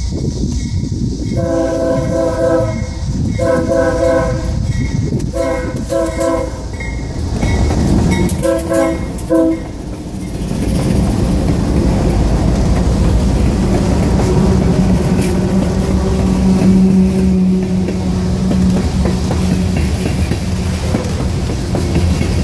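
Nathan K5HL five-chime air horn on a CSX GE ES40DC locomotive sounding the grade-crossing signal: two long blasts, a short one and a final long one. Then the locomotives and freight cars roll past, with engine rumble and wheels clicking over the rail joints.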